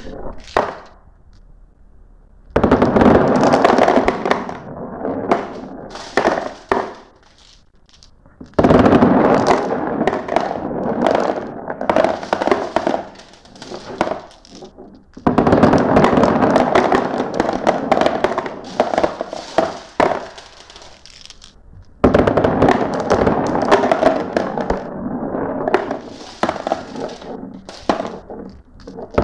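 Many glass marbles clattering and rolling down a marble run track in batches: four sudden surges of dense rattling, about every six to seven seconds, each thinning out into scattered clicks.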